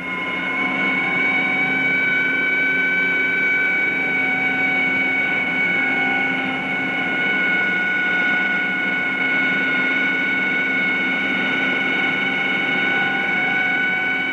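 Engine held at a constant high speed: a steady high-pitched whine over a rushing noise, with no change in pitch.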